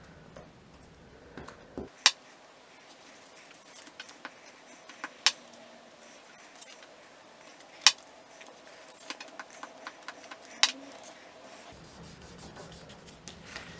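Paper and card being handled, laid down and pressed flat by hand on a tabletop while gluing paper squares onto a card box, with soft rubbing and a few sharp clicks or taps a few seconds apart.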